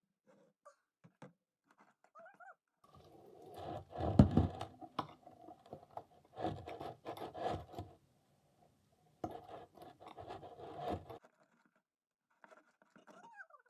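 Sandy glitter slime being stirred and scraped in a bowl: two stretches of gritty scraping and squishing, loudest about four seconds in. A cat meows faintly near the end.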